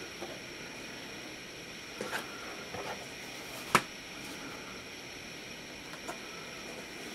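Hands opening and handling the flaps of a corrugated cardboard shipping box: a few light taps and rustles, with one sharp knock a little past halfway.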